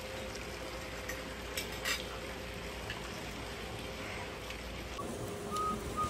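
Steady background hiss of an open-air dining area with a faint hum, a few light clicks of cutlery on plates, and two short high chirps near the end.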